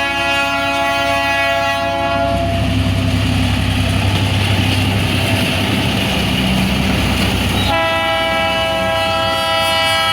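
Train horn sounding a long blast that stops about two seconds in, then the train running with a low steady drone and rushing noise. A second long horn blast starts near the end. The horn signals the train pulling out of the station.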